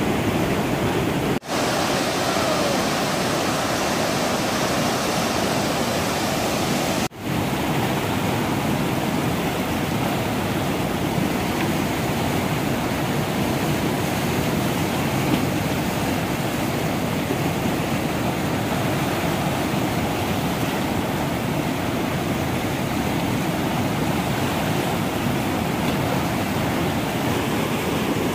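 Whitewater rapids rushing steadily, a loud, even wash of noise from heavy churning river water. The sound drops out very briefly twice, about a second and a half and seven seconds in.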